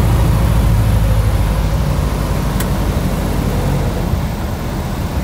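Small single-engine plane's engine and propeller droning steadily, heard from inside the cabin on the approach to land, easing slightly toward the end. A faint brief click about two and a half seconds in.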